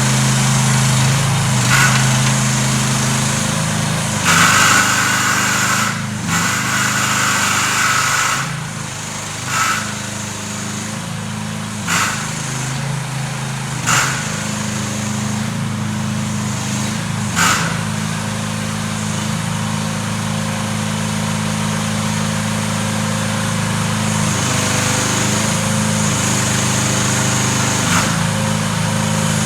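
The small gasoline engine of a CFG H15R mini excavator runs steadily, its note shifting now and then. A higher whine comes in for a few seconds early on, and several sharp knocks are spread through the first half.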